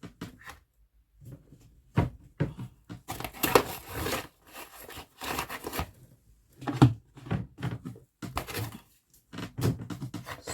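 Cat food packaging being handled: irregular rustling, crinkling and tearing of pouches and boxes, in short bursts with brief gaps.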